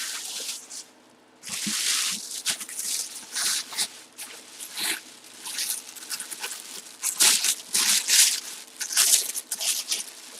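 Packaging being torn open and handled as a boxed football helmet is unpacked: irregular bursts of rustling and tearing, with short pauses between them.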